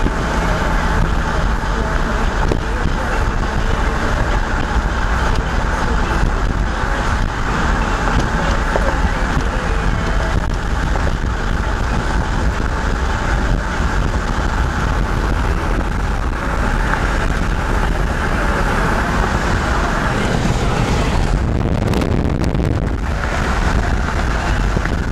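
Steady road and engine noise of a moving car, with a strong low rumble.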